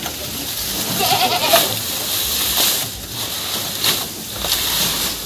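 A goat bleats once, a short wavering call about a second in, over the rustle and crackle of green maize leaves being piled into the goats' feeding trough.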